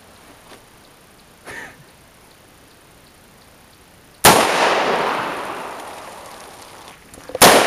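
Two gunshots about three seconds apart, each sharp crack followed by a long echo that fades over two to three seconds.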